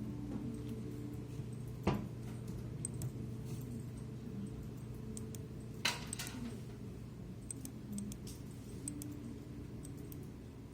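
Two sharp clicks about four seconds apart and a few fainter ticks, over a steady low hum.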